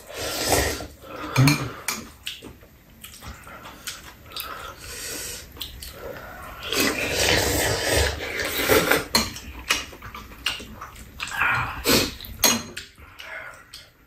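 People slurping ramen noodles and broth in long noisy draws, with metal chopsticks and spoons clinking against bowls in short sharp clicks throughout.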